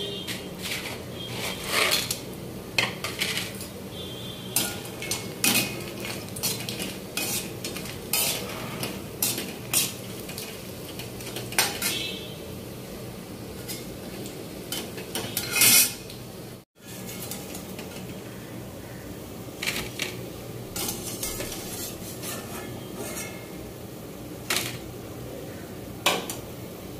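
A perforated steel skimmer clinking and scraping against an iron kadhai as urad dal vadis are turned and lifted out of frying oil, over a low sizzle. The clatter is irregular, loudest just before a brief cut-out about two-thirds of the way through.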